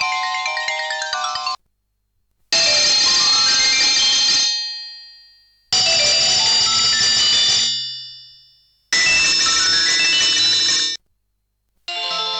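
Sony Ericsson K200i MIDI ringtones played by an Alcatel 1054D's built-in MIDI synthesizer. A many-note tune ends about a second and a half in, then a short, bright jingle sounds three times with gaps between, the first two fading out, and a new melody starts near the end.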